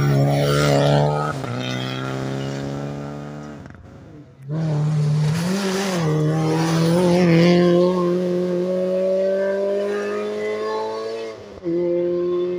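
Rally car engines at high revs as the cars pass on a tarmac stage, in separate edited clips. First a Renault Clio rally car, with a gear change about a second in as its note falls away. After a sudden cut just past four seconds comes a Peugeot 106 rally car accelerating hard, its engine pitch climbing slowly, and there is another brief cut near the end.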